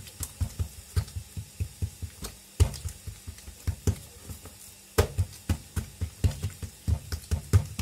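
A hand slapping and patting mlawi flatbread dough on a plate: a quick run of soft thumps, about four a second, with louder slaps about two and a half seconds in and again near five seconds.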